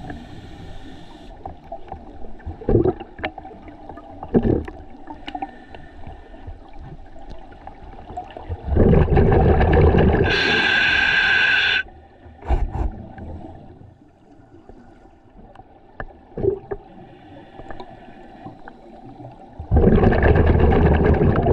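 Scuba diver breathing through a regulator underwater. About halfway through, an exhalation sends out a burst of bubbling for about a second and a half, followed at once by the hiss of an inhalation through the regulator. Another exhalation of bubbles starts near the end, with a few faint knocks in the quieter stretches between.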